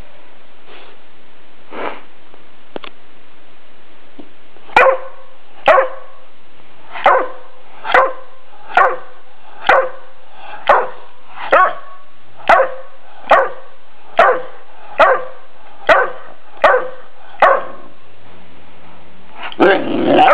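Bullmastiff puppy giving a run of about fifteen short barks at a steady pace of roughly one a second, then breaking into a louder, longer moaning call with a wavering pitch near the end.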